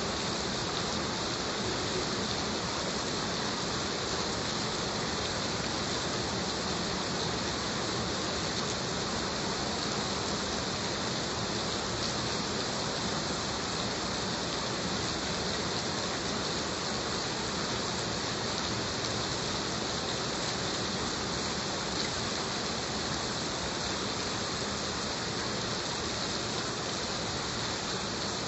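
Heavy rain falling steadily, an even hiss of drops with faint scattered patters.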